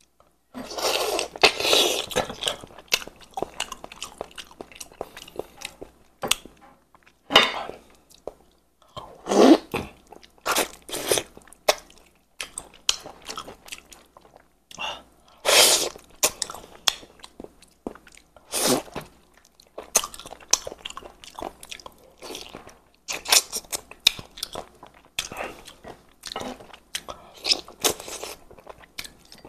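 A person chewing and sucking on red-braised chicken heads, crunching the small bones, in irregular bursts with sharp cracks now and then.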